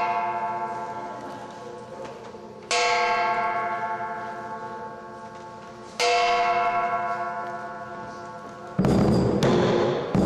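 Gong of a lion dance percussion ensemble struck slowly. Each stroke rings out and fades over about three seconds: two strokes, with the ring of an earlier stroke dying away at the start. About nine seconds in, the drum and cymbals break in with loud, quick hits as the full lion dance music begins.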